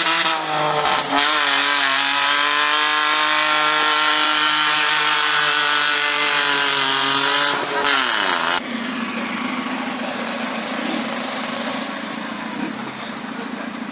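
Car engine revved hard and held at high revs for about eight seconds, its pitch dropping sharply as it comes off the throttle, followed by a lower, noisier rumble.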